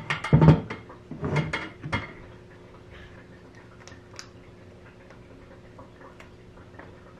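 Glass spice jars being handled: a few loud knocks and clinks in the first two seconds, then faint scattered ticks.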